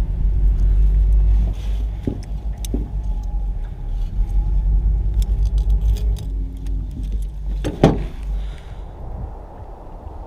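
Rattling and clicking as a metal-rimmed landing net and fishing gear are handled, over a low rumble on the microphone, with one sharp knock about eight seconds in.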